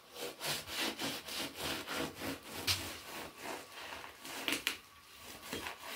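Hand saw blade drawn back and forth through the meat and bone of a butchered carcass, a rasping stroke about three times a second, pausing briefly near the end.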